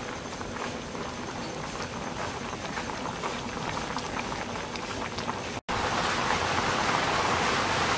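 A pot of fish curry with pickled bamboo shoots at a rolling boil: steady bubbling with small pops. It drops out for an instant about two-thirds of the way in, then comes back louder.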